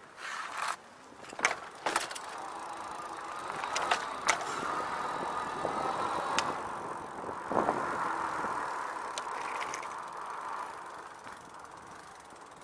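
RadRover e-bike's hub motor whining as the bike pulls away and rides across the street, the whine building a few seconds in and fading near the end, over fat tyres rolling on pavement. Several sharp knocks and rattles from the bike going over bumps, mostly in the first few seconds.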